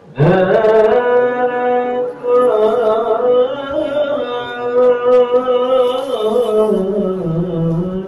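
A single voice chanting an Islamic devotional chant in long, ornamented sung phrases. It starts abruptly just after the beginning, breaks briefly about two seconds in, and sinks lower in pitch near the end.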